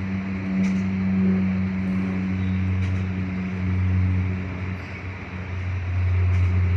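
Steady low mechanical hum, a machine drone that swells and eases slightly in loudness.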